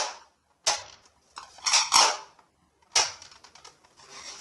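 Plastic toy dart blasters being handled: three bursts of sharp plastic clacks and rattling, about a second apart, the middle one the longest.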